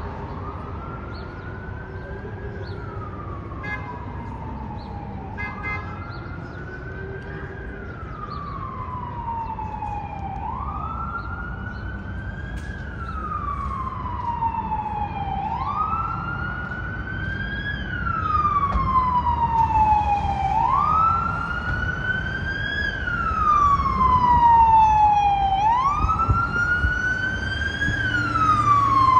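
FDNY fire-department siren wailing, sweeping up and falling back about once every five seconds and growing louder toward the end as the vehicle approaches, over a steady hum of city traffic.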